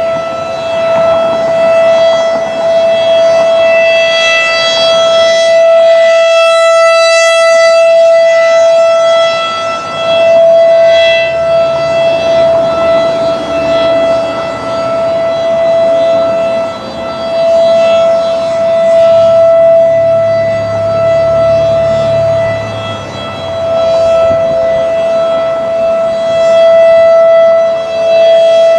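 Federal Signal 2001 DC rotating tornado siren sounding a steady tone at full pitch, its loudness swelling and fading every several seconds as the rotating head turns toward and away.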